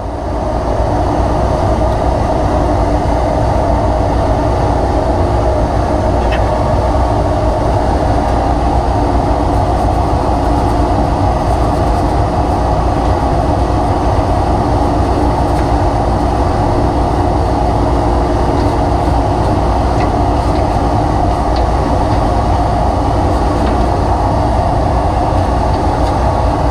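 Dust-collection vacuum running steadily, drawing air through a hose wand while the inside of a table saw is cleaned out, with a couple of faint ticks about 6 and 20 seconds in.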